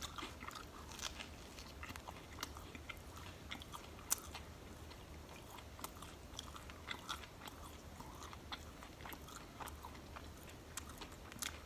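A person chewing a mouthful of sub sandwich close to the microphone: faint, with scattered small mouth clicks and soft crunches.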